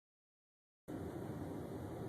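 Dead silence, then a steady noisy hum cuts in abruptly about a second in.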